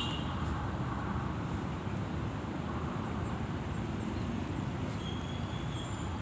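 Steady low outdoor rumble, with a couple of faint high chirps near the end.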